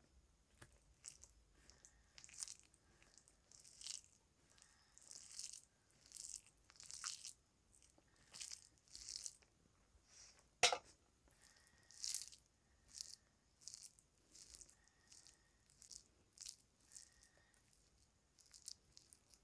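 Fingers mixing and mashing cooked rice by hand on a banana leaf, a string of soft, sticky rustling squishes every half second or so. A single sharp click about ten and a half seconds in.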